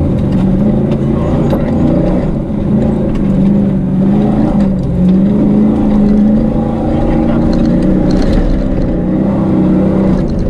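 Rally pickup truck's engine running under load, heard from inside the cabin, its pitch wavering a little as the throttle changes, over rumble and rattles from the rough dirt track.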